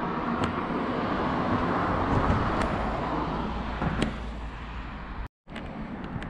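Road traffic: a motor vehicle passing, its tyre and engine noise swelling to a peak about two seconds in and then fading. The sound cuts out completely for a moment near the end.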